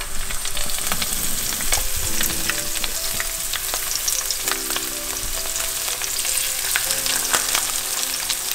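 Seasoned butterflied sardines and a small whole baitfish frying in hot olive oil in a nonstick pan: a steady sizzle with frequent small crackles and pops as the fish cooks and another fillet is laid in.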